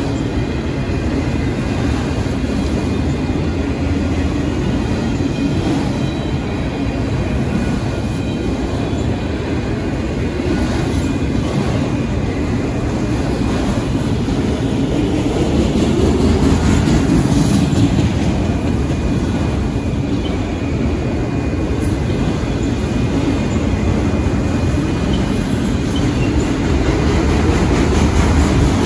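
Freight train of autorack cars rolling past close by: a steady, loud rumble and clatter of steel wheels on rail, swelling a little midway and again near the end, with a faint thin wheel squeal in the first half.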